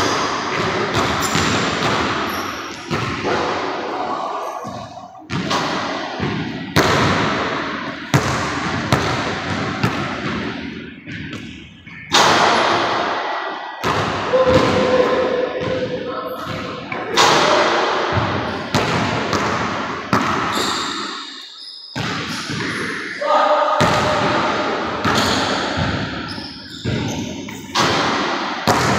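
Basketball bouncing on a hardwood gym floor and striking the rim and backboard: a string of irregular, sharp thuds, each ringing on in the echoing gym.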